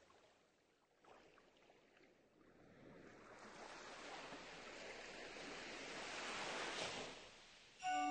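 A soft rushing noise that fades almost out, then swells slowly over several seconds and drops away. Music with long held notes starts just before the end.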